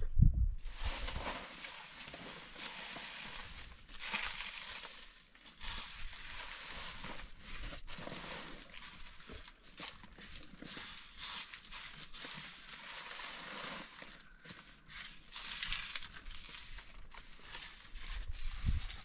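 Woven plastic sack rustling and crinkling as handfuls of charcoal and ash are scooped into it, with irregular scraping and small clinks of charcoal pieces. A brief low rumble at the very start.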